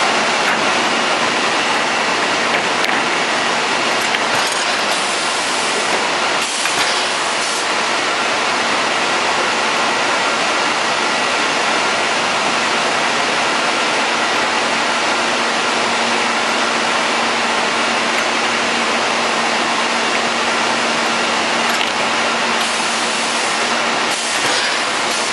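Industrial sanding machine for panels running: a steady, loud rushing noise with a faint steady hum underneath.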